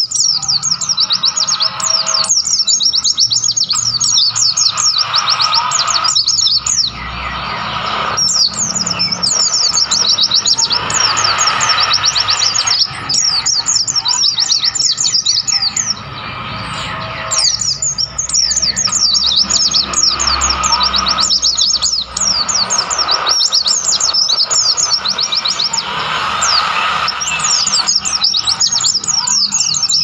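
White-eye (pleci) song: rapid, high-pitched twittering chirps in bouts of a few seconds, broken by short pauses, repeating throughout.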